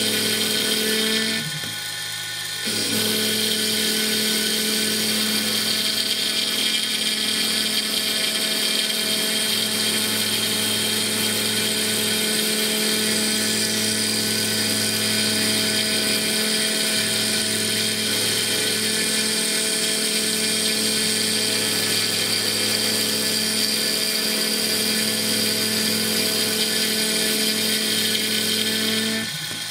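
CNC mill spindle whining steadily as a small end mill cuts a clearance pass into a turning Stone Hopea burl ring blank. The whine dips briefly about two seconds in and again near the end, where the cut changes between passes.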